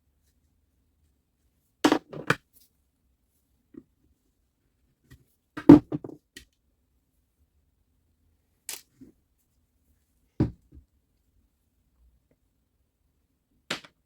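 Handful of separate sharp clicks and knocks, like parts and tools being picked up and set down on a workbench during the saw repair, with silence between them; the loudest knock comes about six seconds in.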